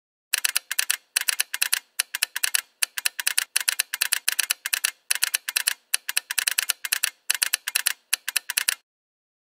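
Keyboard typing: rapid keystroke clicks in short runs with brief pauses between them, stopping near the end. It is a typing sound effect that keeps time with text typing out on screen.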